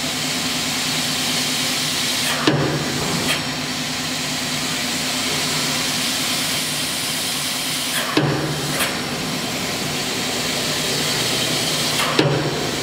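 Maplewood 10-gauge crimping and beading machine running under power: a steady motor hum with hiss. Three sharp clacks come a few seconds apart as the machine cycles, the first two each followed by a lighter click.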